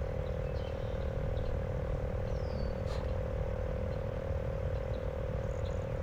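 Steady, unbroken droning chorus of frogs over a low rumble, with one short falling chirp a little after two seconds in.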